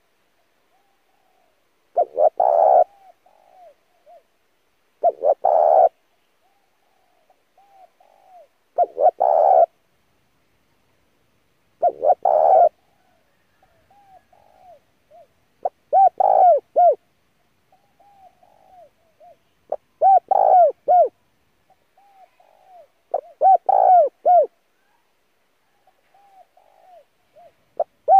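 Spotted dove cooing: seven full cooing phrases about every three to four seconds, with soft, short coos between them.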